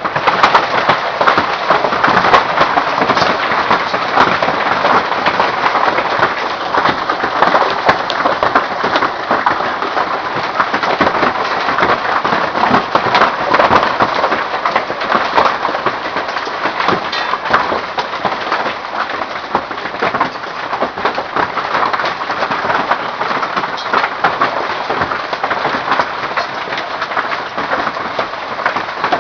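Hail pelting down in a hail storm: a dense, steady clatter of countless small impacts.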